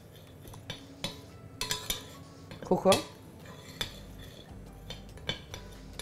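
Spoon stirring powdered sugar and cinnamon in a large ceramic bowl, knocking and scraping against the bowl in scattered, irregular clinks.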